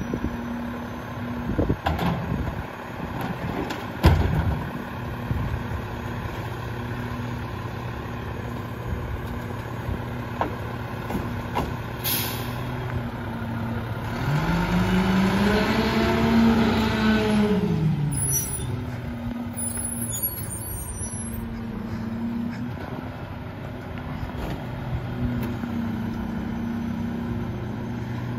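Rear-loader garbage truck (Mack LEU with a Heil 5000 body) running at idle, with thuds of bulky items thrown into the hopper about two and four seconds in, the second the loudest. About twelve seconds in there is a short hiss of air, then the engine revs up and back down over about four seconds as the packer blade cycles.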